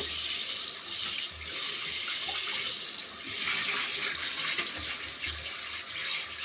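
Tap water running and splashing while a dog's legs and paws are washed under the stream, a steady hiss that falls away briefly twice.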